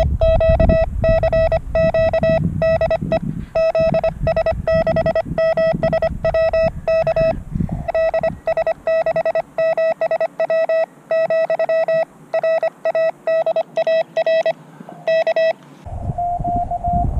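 Morse code (CW) sidetone from a portable amateur radio transceiver: a single steady beep keyed on and off in dots and dashes by a paddle key as the operator sends. Near the end the sending stops and the receiver's hiss comes back with a steady tone.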